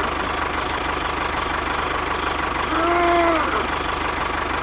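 Engine running steadily at idle with a fast, even low chugging pulse. A short pitched hoot that rises and falls in pitch sounds once, about three seconds in.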